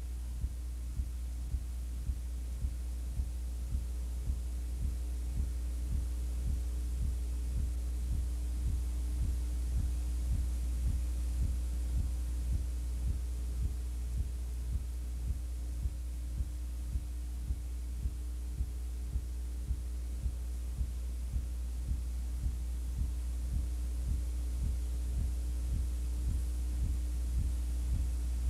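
Steady electrical hum with a regular low pulsing about twice a second, with no game or crowd sound audible: noise on the audio of an old video tape transfer.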